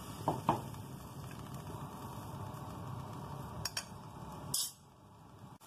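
Leaf soup bubbling at a steady boil in a clay pot, with two light clinks about half a second in. Near the end there is a short louder burst, and then the bubbling drops away suddenly.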